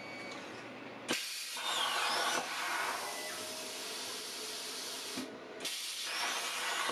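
Hynade CUT60DN plasma cutter firing: a steady hissing rush of arc and compressed air starts abruptly about a second in. It cuts out briefly near five seconds and then starts again.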